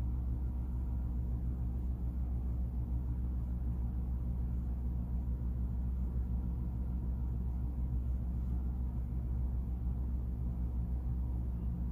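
Steady low hum with a rumble underneath, even and unchanging.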